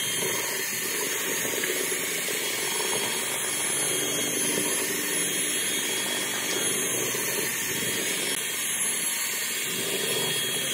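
Handheld electric drill with a paddle mixer running steadily, its motor whining as the paddle churns wet cement mortar in a metal drum.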